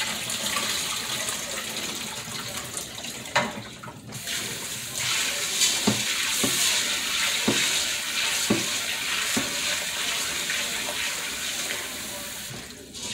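Kitchen faucet running into a stainless steel pot while black beans are rinsed in it, with a few light knocks in the middle.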